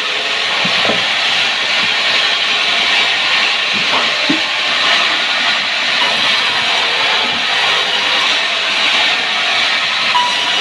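Power saw cutting wood, a loud, steady, harsh hiss of the blade through the timber.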